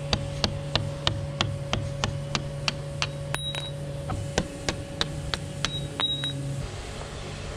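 Hammer blows on a steel punch, about three a second, driving out the bolts at the foot of a sailboat rudder to free it; the blows stop a little over six seconds in. A steady hum sits underneath.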